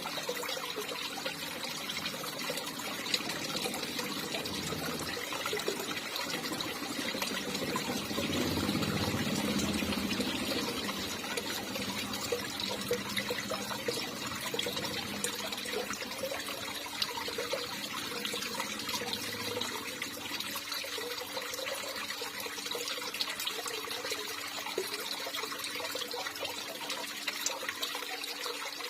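Water running and trickling steadily, swelling a little louder for a few seconds about a third of the way in.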